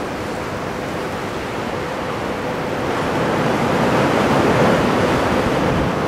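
Heavy typhoon swell breaking and rushing in as a steady surf roar that swells louder about halfway through, with wind buffeting the microphone.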